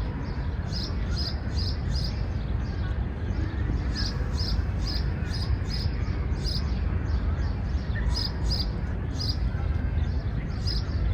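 A songbird chirping, short high notes repeated in runs of several at about three a second, over a steady low rumble of background noise.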